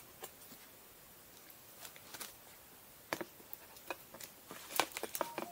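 A Chihuahua–Jack Russell terrier mix puppy moving about on bedding close to the microphone, making scattered light clicks and scuffs, with a quicker cluster of them near the end.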